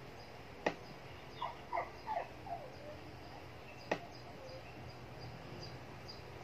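Dog whimpering: a quick run of four or five short whines, each falling in pitch, about a second and a half in, between two sharp clicks.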